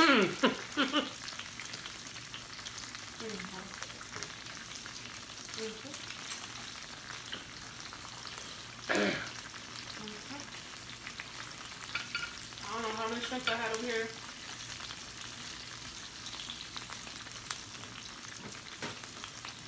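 Thin slices of meat sizzling on a tabletop Korean barbecue grill plate: a steady frying crackle with grease popping. There is a single sharp clatter about nine seconds in.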